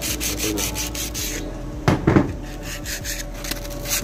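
Emery paper rubbing back and forth on the metal face of an AC compressor's clutch plate and pulley in quick, even strokes, cleaning the surfaces before the clutch is refitted. A brief pause about two seconds in holds two or three sharp knocks, then the rubbing starts again.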